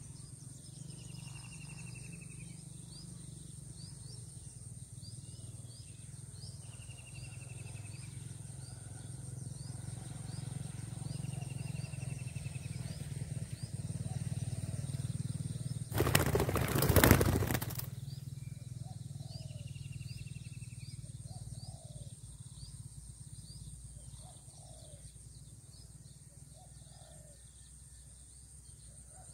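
Outdoor field ambience with a few short falling bird whistles and faint repeated high chirps over a steady low hum, broken about sixteen seconds in by a loud rush of noise lasting about two seconds. From about nineteen seconds in, a dove coos in low notes repeated about every two seconds.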